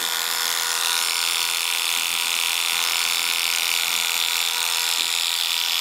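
Electric rotary hair clipper with a 1A blade running steadily while clearing short hair from an undercut, a constant buzz with a high hiss.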